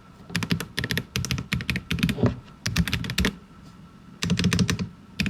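Royal Kludge M75 mechanical keyboard with linear switches being typed on in quick bursts of keystrokes, with a short pause past the middle.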